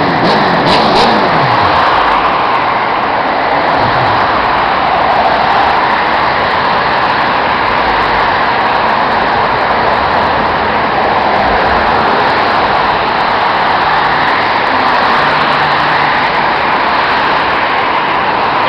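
Steady road traffic noise, cars passing, with an engine sliding in pitch in the first few seconds.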